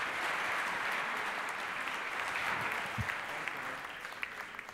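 Audience applauding, the clapping thinning out near the end into a few scattered last claps.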